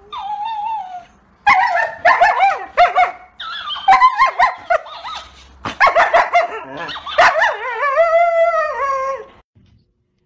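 Siberian husky barking and yowling, a run of short yips and bending, wavering calls that ends in a longer drawn-out howl near the end.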